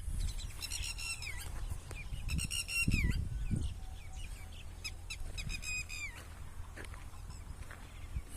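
A bird calling three times, each call a quick run of repeated high notes that ends in a falling slur, over a steady low rumble.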